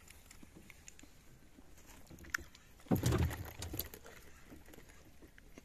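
A sudden dull thump on a small boat about three seconds in, followed by a second of clattering and knocking, after a single sharp click just before.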